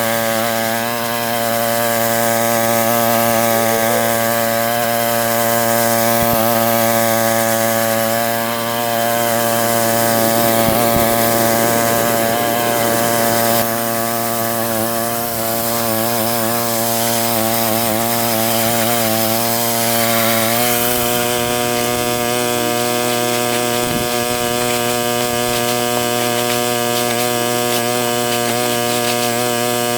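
Small petrol engine of a moss-clearing machine running steadily at working speed. Its note wavers under load in the middle and settles to an even pitch about two-thirds of the way through.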